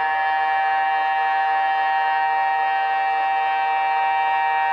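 Tsunami early warning siren sounding during a test: a loud, steady tone of several pitches at once, held without rising or falling.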